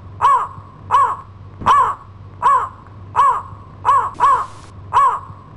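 Crow caws imitated by a girl's voice: about eight short, harsh caws at an even pace, roughly one every three-quarters of a second.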